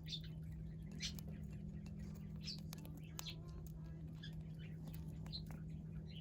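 Pet birds giving short, high chirps and peeps scattered through, with faint clicks, over a steady low hum.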